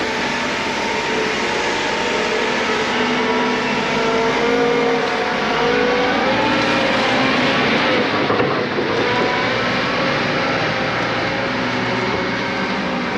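A heavy machine's engine running steadily, its pitch drifting slowly up and down.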